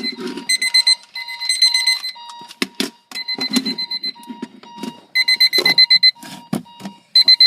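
Several electronic alarm clocks beeping at once in overlapping patterns: a high, shrill beep in rapid bursts about a second long with short gaps between, over a lower beep that pulses steadily several times a second.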